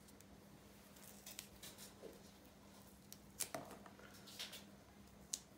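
Near silence with faint, scattered crackles and rustles as a leek's outer layer is peeled off and the stalk is handled by hand. A faint steady low hum runs underneath.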